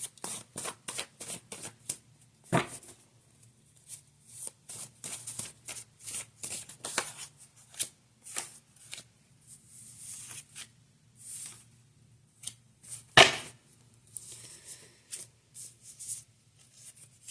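Tarot deck being shuffled by hand: a long run of quick, crisp card snaps and riffles, with two louder sharp knocks about ten seconds apart.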